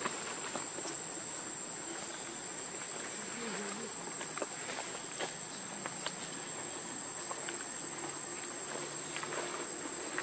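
Forest insects keeping up a steady high-pitched drone on one unbroken tone, with scattered light clicks and rustles from the leaf litter.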